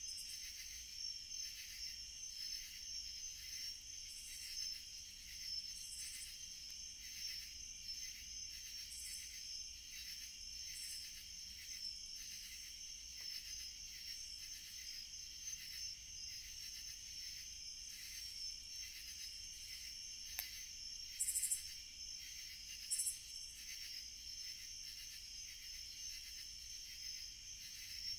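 Steady chorus of night insects, crickets chirping in a high, pulsing trill. About two-thirds of the way through, two brief, louder high hisses stand out over it.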